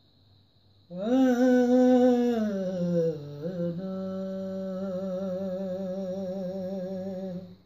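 A man's unaccompanied voice sings the wordless opening of a noha lament: from about a second in, a loud held note that falls away, then a second long note with a steady waver, breaking off near the end.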